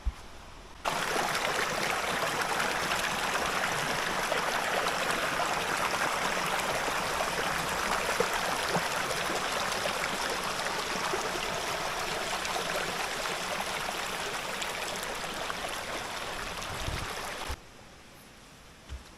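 River water rushing steadily over rocks. The rush starts suddenly about a second in and cuts off abruptly near the end.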